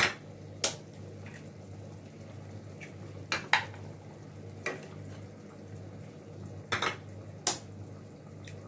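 Sharp clinks of dishware, about six spread irregularly over several seconds, as eggs are cracked one at a time on the rim of a small bowl. A low steady hum runs underneath.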